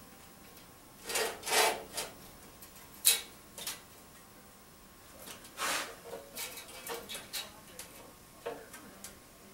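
Irregular clunks and short scrapes of tools and steel pieces being handled and set down on a workbench, with a sharp knock about three seconds in.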